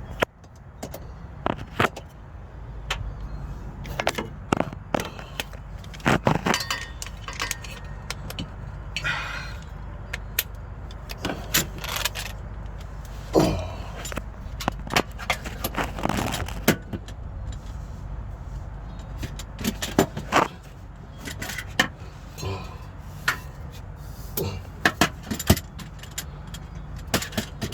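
Scattered clicks, knocks and light metallic rattles of tools and interior trim parts being handled as the gear shifter assembly of a 2009 Infiniti G37 is put back together, over a steady low rumble.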